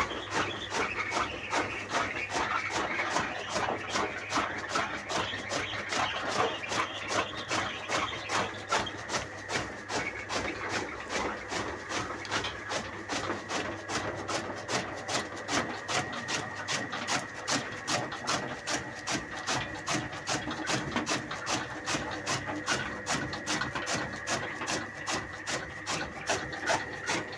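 Chaff cutter chopping fodder: a quick, regular rhythm of cutting strokes, with a steady whine underneath.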